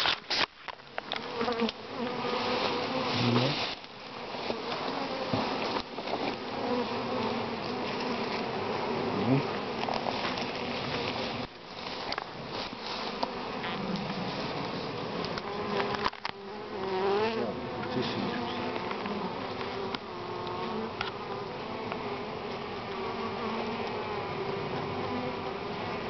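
Honeybee swarm buzzing, a steady dense hum of many bees as the swarm cluster is lowered on its branch into a wooden hive box. A few brief knocks or rustles from handling break in near the start and about midway.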